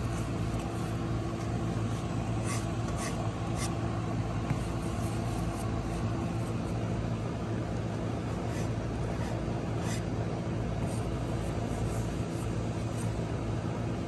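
Steady low hum of a running motor, with a few faint ticks over it.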